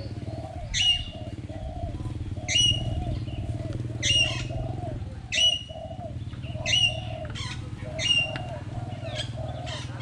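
Aviary birds calling: six loud, short, sharp calls about every second and a half, over a lower, continuous run of quick repeated notes.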